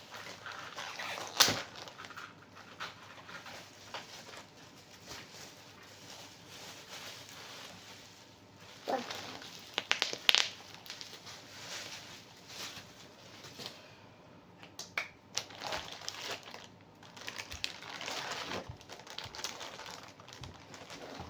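Plastic sandal packaging rustling and crinkling as it is cut open with scissors. A few sharp clicks and snips stand out, the loudest about a second and a half in and around ten seconds in.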